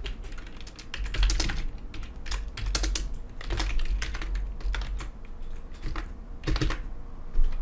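Typing on a computer keyboard: irregular keystrokes in short runs, with one louder keystroke near the end.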